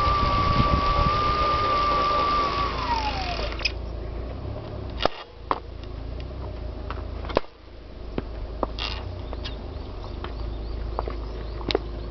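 Old Minoura bicycle trainer running with a bike on it: a steady whine from the spinning roller, which falls in pitch and fades about three seconds in as it spins down. After that a lower rumble carries on, with scattered clicks and knocks.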